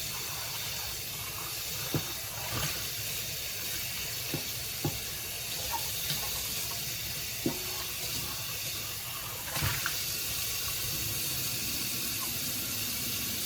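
Water running steadily from a tap while car cup holder pieces are washed by hand, with a few short knocks.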